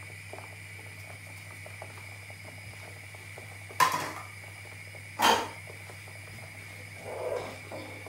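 Kitchenware clunking twice, about a second and a half apart, as a bowl is set down on the worktop and the cook works at the stew pot, over a steady low hum.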